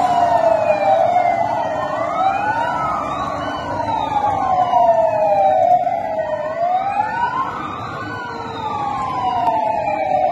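Sirens of a convoy of police pickup trucks: at least two sirens wailing out of step, each rising and falling slowly over a few seconds.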